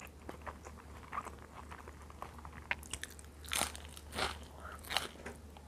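A person eating: chewing with small clicks of the mouth, and a few louder crunchy bites in the second half.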